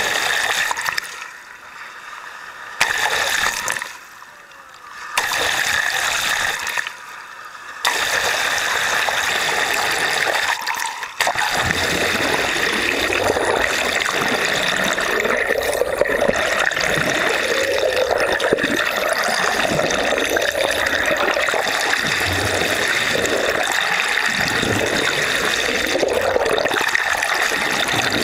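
Steady splashing and trickling water, with the sound dropping away abruptly and returning three times in the first eight seconds.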